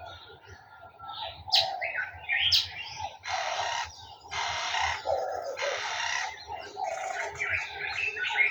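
Several garden birds calling and singing together: sharp high chirps, three harsher calls of about a second each in the middle, and lower calls running underneath.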